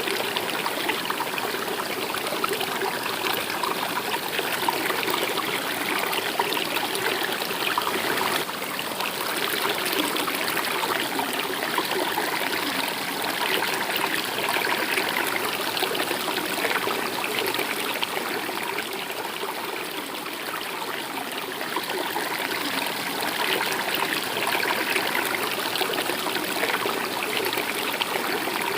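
Stream water running steadily, a dense, even trickle and splash.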